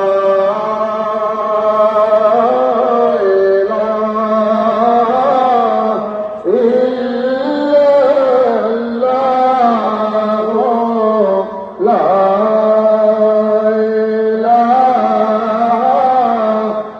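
Sufi dhikr chanted in long, held melodic phrases by a voice, breaking for breath about every five to six seconds.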